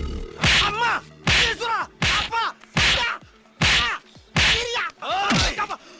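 A man being slapped over and over, about seven slaps roughly one every 0.8 seconds, each answered by a short pained cry that falls in pitch.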